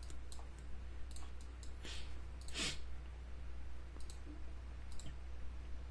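Computer mouse clicking now and then, a handful of sharp, scattered clicks over a steady low electrical hum. A short breath-like sound comes about halfway through and is the loudest thing.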